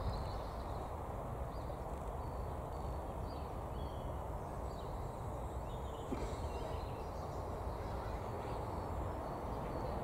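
Faint bird calls, a scatter of short chirps, over a steady low rumble.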